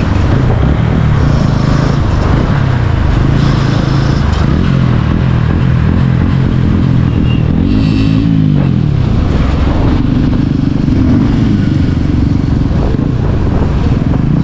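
Motorcycle engines and exhausts running at low road speed, heard from a moving Bajaj Pulsar 150 with a TVS Ronin 225 beside it at the start. About eight seconds in, an engine revs up and back down.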